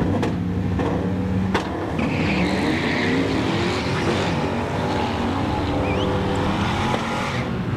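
Two Fox-body Ford Mustang drag cars pulling off the line, engines revving hard and rising in pitch as they accelerate, with a brief tire squeal about two seconds in.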